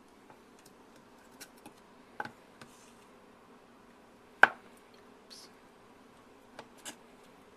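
Scattered small clicks and knocks from handling kitchen dishes and a measuring cup, with one sharper knock about four and a half seconds in, over a faint steady room hum.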